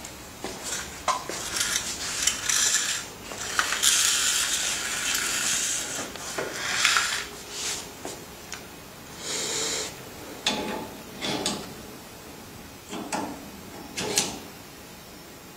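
Hands working on a jewelry laser welding machine and its fittings: irregular clicks, knocks and rubbing of plastic and metal parts, with a longer rustling stretch a few seconds in.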